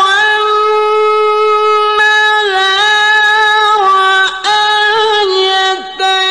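A male qari reciting the Quran in the melodic tilawah style: a high, long-held note that steps down in pitch a few times, with two short breaks in the voice.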